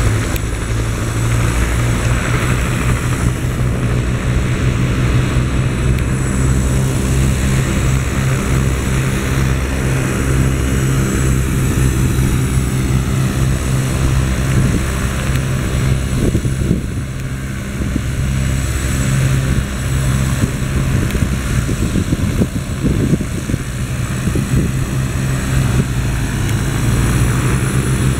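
Helicopter on the ground with its engine running and rotor turning, a steady drone that sags slightly about two-thirds of the way through.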